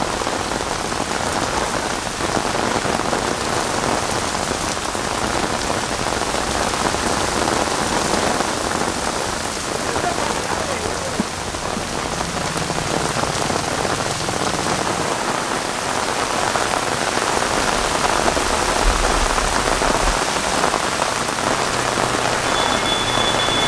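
Steady rain, an even hiss without pauses. A faint high steady tone comes in near the end.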